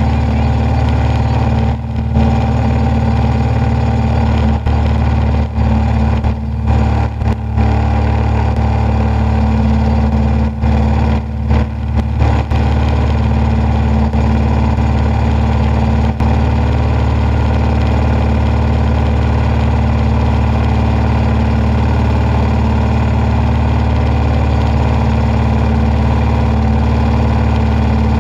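Engine and propeller of a DG505MB self-launching motorglider running steadily under power, a constant drone heard from inside the cockpit. A few brief dips in loudness come in the first half.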